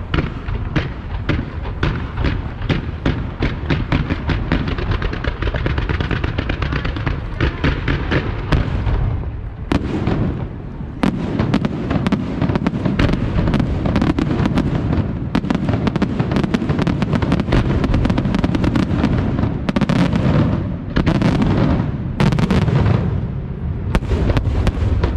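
Aerial fireworks display: a rapid string of sharp bangs, about three a second, for the first third, then denser, heavier volleys of shell bursts over a continuous low rumble, loudest in clusters near the end.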